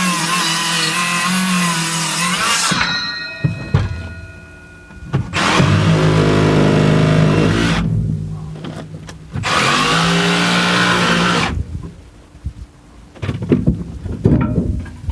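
A power tool cuts with a rough, wavering noise that stops about three seconds in. Then a small electric motor runs twice, about two seconds each time, spinning up and winding down. Some clatter follows near the end.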